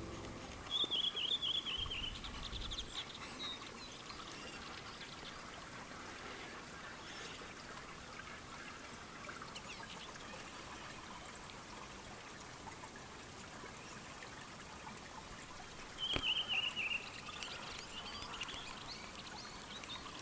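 A bird calls twice, each a short, high, falling trill, the second about fifteen seconds after the first, over a steady hiss of running water.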